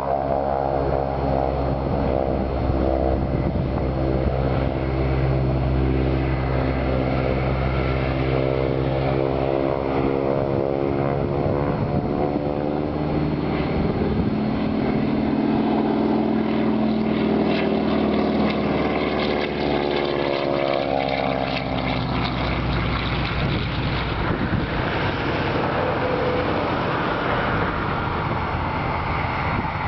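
Crop-duster airplane's propeller engine droning as it flies low past and overhead. Its pitch drops steadily for the first half, then swells and falls again as the plane passes overhead around the middle, turning to a more even, noisier drone as it moves off.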